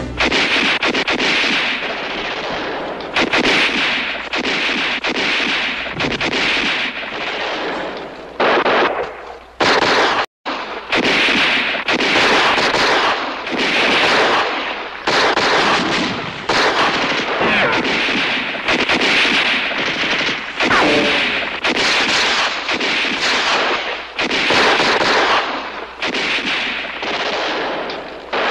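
Heavy gunfire: many shots in rapid, overlapping bursts almost without pause, with a brief silent gap about ten seconds in.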